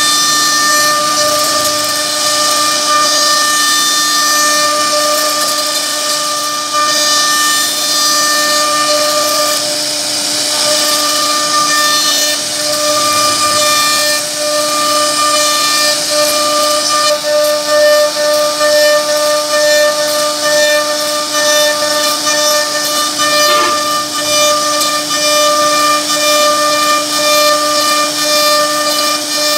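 CNC router spindle running at speed while its bit carves a relief pattern into a wooden board: a loud, steady whine over the hiss of the cutter chipping wood.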